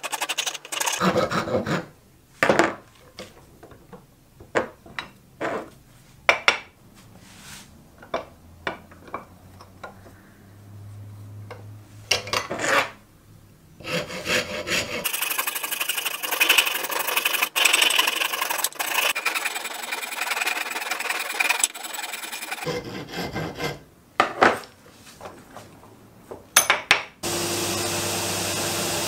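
Hand rasp and file scraping across a wooden blank held in a vise, first in separate strokes with pauses, then in a quick run of strokes. Near the end a belt grinder takes over with a steady running sound.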